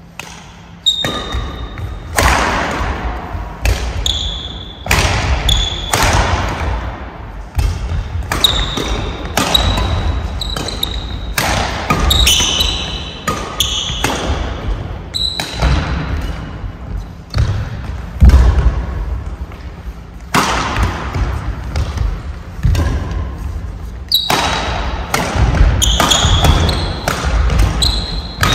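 Badminton rally in a hall: a long run of sharp racket strikes on the shuttlecock, with short high squeaks of court shoes on the floor and heavy footfalls between the hits.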